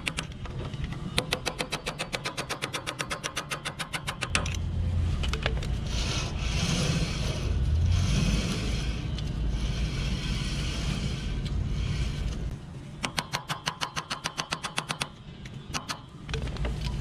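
Hand ratchet clicking rapidly, about ten clicks a second, in two runs of a few seconds: one about a second in and one near the end. Between them comes a steadier mechanical rubbing noise.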